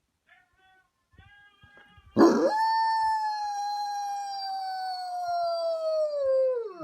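A dog gives a few faint short whines, then about two seconds in lets out one long howl that holds for about four and a half seconds, slowly sinking in pitch and sliding steeply down at the end.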